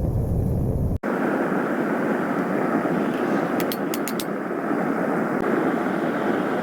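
Steady roar of a single-burner propane forge, with an abrupt break about a second in after which it sounds thinner and hissier. A little past the middle comes a quick run of four light, sharp ticks.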